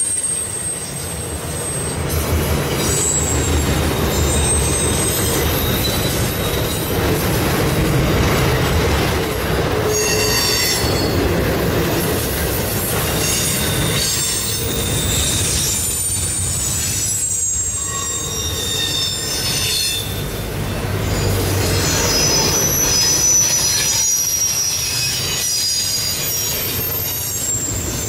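Freight train cars rolling past with a steady low rumble, their wheels giving off high-pitched squeals that come and go, over and over.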